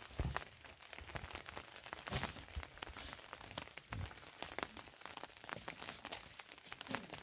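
Faint rustling and crackling of a cloth sack and rope being handled, with a few soft thuds of footsteps on a concrete step.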